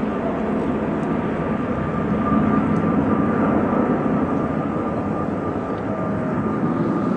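Airbus A350 jet airliner's Rolls-Royce Trent XWB turbofan engines running: a steady rushing rumble with a thin, steady high whine over it.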